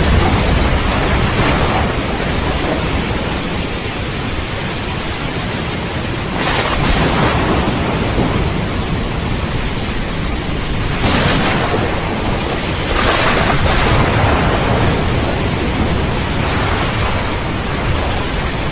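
Thunderstorm: steady heavy rain with thunder rumbling low throughout, swelling louder three times, about a third of the way in and twice more past the middle.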